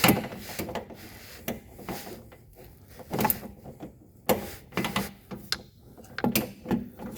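Irregular knocks, clicks and scrapes of hand tools being worked on the vehicle during an oil change, with a few sharper taps near the middle and end.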